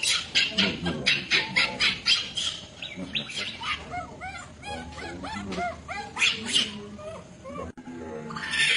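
Baby macaque crying: a quick run of shrill screams, about four a second, giving way to a string of short whimpering cries, each rising and then falling in pitch. A harsher, noisier scream comes near the end.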